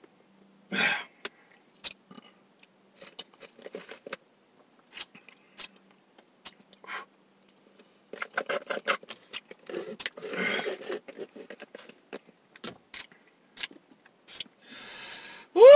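Plastic straw scraping and squeaking in the lid of a slushie cup, with scattered clicks and short slurps as the icy drink is stirred and sucked, busiest about halfway through. A short rising vocal groan near the end.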